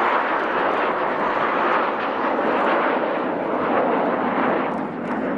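Four Kawasaki T-4 twin-turbofan jets flying past together in close formation: a loud, steady rushing jet noise that eases slightly near the end.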